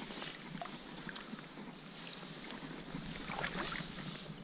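Water lapping in shallow lake water with light wind on the microphone, and a few faint clicks and splashes from a landed pike being handled.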